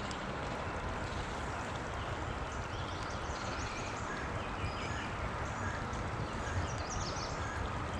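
Steady rushing of creek water, with a low rumble and short high chirps from about two and a half seconds in.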